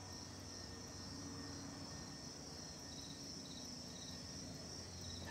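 Faint steady high-pitched chirring of insects such as crickets, with a few short chirps about three to four seconds in, over a low steady hum.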